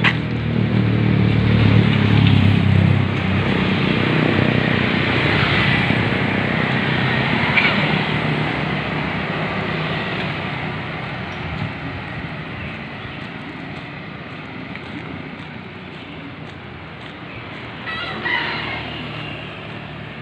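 Motorcycle engine passing close, strongest in the first few seconds and then fading into steady street traffic noise that slowly gets quieter. A rooster crows a few times, most clearly near the end.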